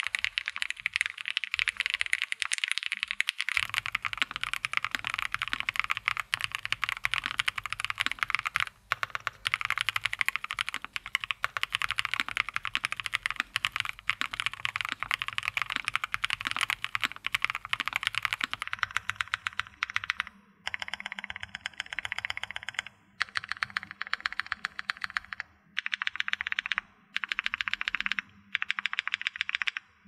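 Fast, continuous typing on a Fried Head 丹鹤 80 gasket-mount mechanical keyboard with factory-lubed 68 g BP Studio OS switches and GMK keycaps. After about two-thirds of the way, the typing breaks into short runs of keystrokes separated by brief pauses.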